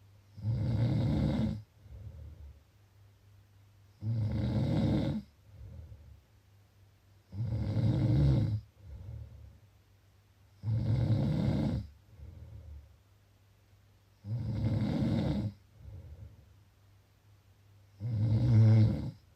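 Snoring: six loud snores, each about a second and a half long and coming about every three and a half seconds, each followed about a second later by a softer, shorter breath.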